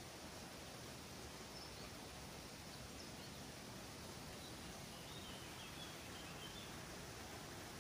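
Faint steady outdoor hiss with a few faint bird chirps, mostly about five to six and a half seconds in.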